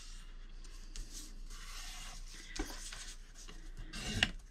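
A sheet of paper being lined up and folded, a soft rubbing rustle with a couple of light taps.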